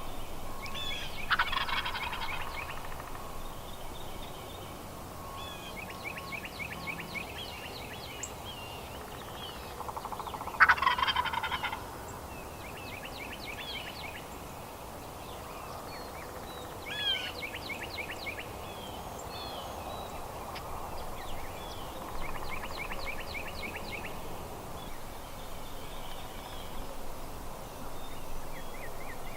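A wild turkey gobbler gobbling twice, loud and close: once about a second in, and again, louder, about ten seconds in.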